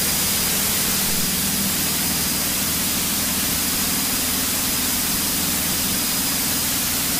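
Steady drone of a small single-engine airplane's piston engine and propeller at cruise power, about 2,400 rpm, under heavy wind rush.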